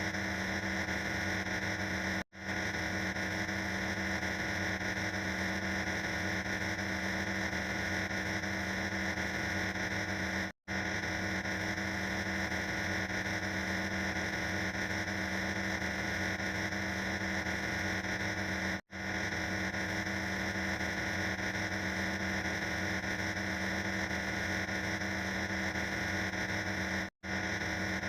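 A harsh, steady wash of noise played as a loop; it cuts out for an instant and restarts about every eight seconds.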